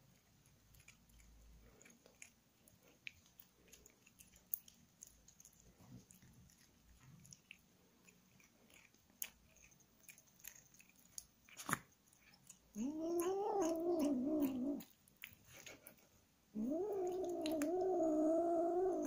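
Siamese kitten licking and chewing at a chocolate bar with faint, scattered wet clicks, then two long, drawn-out kitten meows of about two seconds each in the second half. The meows are the loudest sound, and there is a sharp click just before the first.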